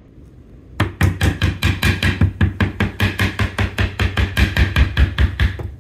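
Rubber mallet tapping quickly and repeatedly on a particle-board furniture panel, about six light blows a second. The tapping starts about a second in and keeps up for nearly five seconds.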